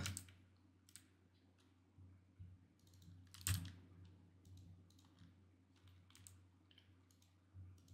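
Faint, scattered clicks of a computer keyboard and mouse being worked, with one louder click about three and a half seconds in.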